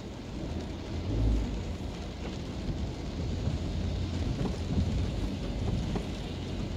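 Rain and car tyres swishing on wet asphalt, heard from inside the moving car's cabin. A deep low rumble swells about a second in and again through the second half.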